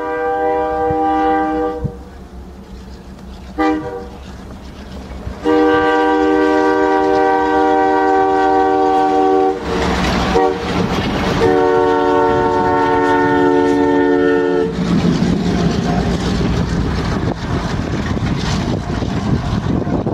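Multi-chime diesel train horn on a snowplow train: one long blast fading out about two seconds in, a short toot, then a long sustained blast from about five seconds in that is briefly swamped near the middle by a loud rush as the plow passes, throwing snow. For the last five seconds a dense rushing noise of thrown snow and the passing locomotives takes over.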